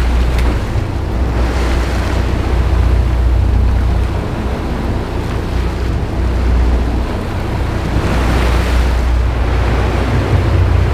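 Sportfishing boat's engines running steadily at trolling speed, with the wake's water rushing behind the stern and wind buffeting the microphone.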